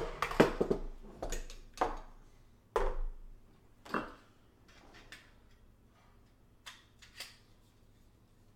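Metal rig-frame parts and screws clinking and knocking as they are handled, a quick run of sharp clicks and knocks over the first few seconds, then a couple of faint taps near the end.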